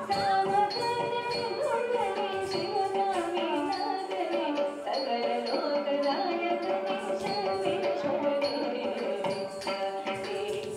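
Carnatic music accompanying a Bharatanatyam dance: a melody with gliding ornaments over a running pattern of drum strokes.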